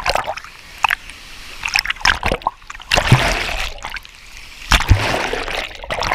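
Water splashing close by in a series of loud bursts, the biggest about three seconds in and again near five seconds.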